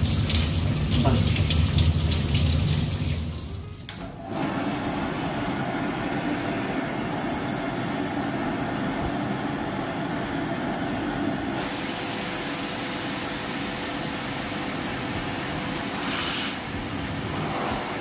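Steady rush of running water from a shower spray, starting about four seconds in after a louder, deeper passage.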